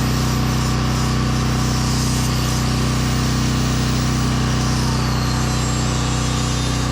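Portable generator engine running steadily, with a power sander whining over it and dropping slightly in pitch near the end.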